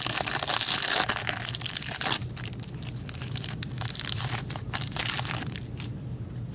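A trading card pack's wrapper torn open and crinkled by hand: a dense crackling rush for about two seconds, then scattered crackles as the cards are worked out, dying away about six seconds in.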